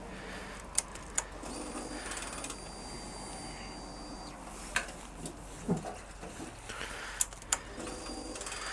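Several sharp clicks from hands working the controls around the ignition and tank of a Suzuki GSX-R 1000 sport bike. A faint, steady, high mechanical whir comes in twice, each time for about two and a half seconds.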